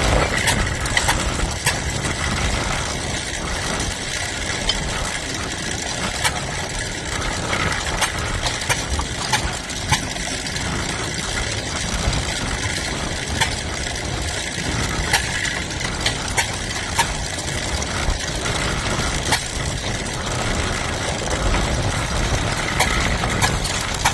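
An engine running steadily, with sharp mechanical clicks and knocks at irregular intervals.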